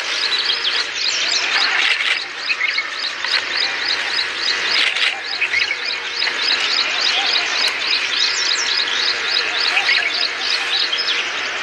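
A bird calling outdoors with a fast, steady run of short repeated high notes, about three or four a second, over a haze of background natural sound.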